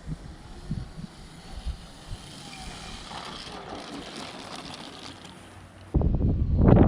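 Wind buffeting the microphone in uneven gusts, turning suddenly much louder and rougher near the end.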